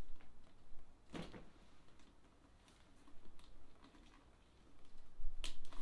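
Handling of a pebbled-leather handbag and its shoulder strap: light clicks and rustles from the strap's metal clip and rings, with a sharper click about a second in and another near the end.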